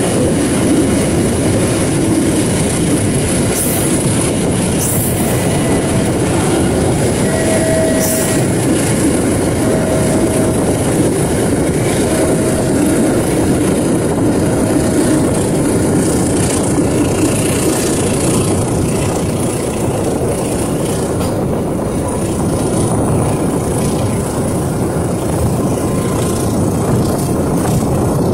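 Passenger train running at speed, heard through an open carriage window: a steady, loud rumble of the wheels on the rails. A few short, high tones repeat about every two seconds in the middle.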